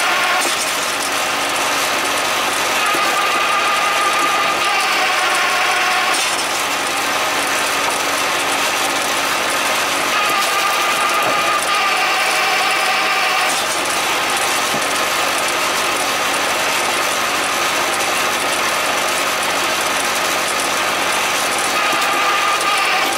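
Krpan hydraulic log splitter running under power: a steady mechanical drone with a higher whine that comes and goes in stretches of a few seconds, strongest near the start and again about ten seconds in.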